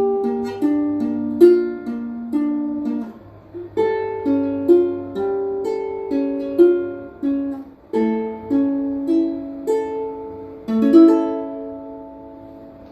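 Solo ukulele fingerpicking a slow, gentle melody of plucked notes over chords. Near the end the last notes ring out and fade away.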